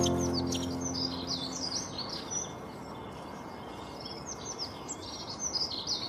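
Several birds chirping and singing in quick, varied short phrases. At the start a low held note, the tail of background music, fades out over about two seconds.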